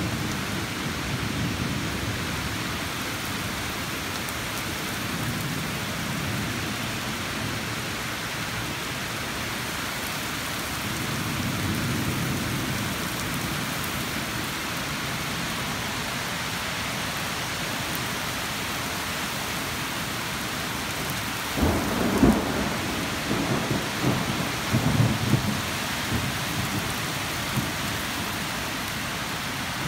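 Steady rain with thunder rumbling low at times, then a louder, crackling thunder clap about two-thirds of the way through, followed by more rumbling.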